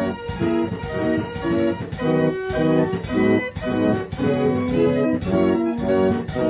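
Instrumental background music with a steady beat, laid over a photo slideshow.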